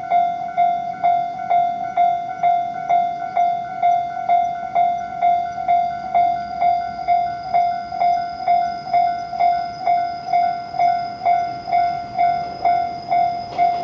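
Japanese railway level-crossing alarm ringing, an electronic ding repeating about twice a second, warning of an approaching train.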